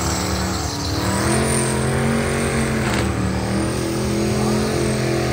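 Race car engine running at held revs, its pitch stepping up about a second in and then holding steady.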